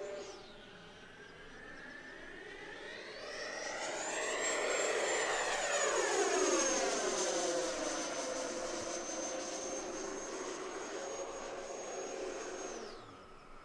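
E-flite Viper 90mm electric ducted-fan jet flying past with a high fan whine. The whine drops right at the start, rises again about four seconds in as the pass grows loudest, and falls away near the end.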